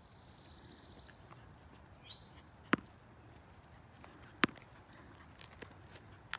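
Two sharp clicks about a second and a half apart, with a few fainter ticks after them. A bird gives a short chirp just before the first click.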